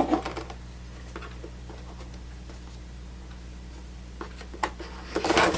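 Faint handling of sealed keyboard packaging: scattered light ticks and rustles over a steady low hum, with a sharper click about four and a half seconds in and busier handling near the end.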